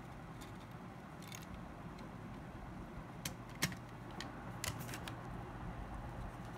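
Scattered light clicks and taps from small smartphone parts and tools being handled, the sharpest a little past the middle, over a steady low hum.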